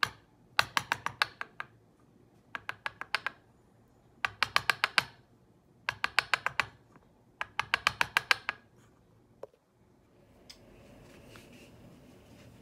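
A steel chisel being tapped into the wood at the shoulder of a wooden hammer handle to cut the tenon: five quick runs of about eight light, sharp taps each. A softer scraping follows near the end.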